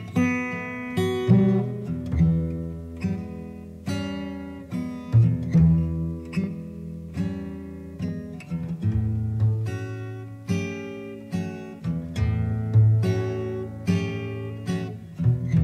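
Acoustic guitar playing a blues: plucked notes and strummed chords that strike and ring out, with low notes beneath.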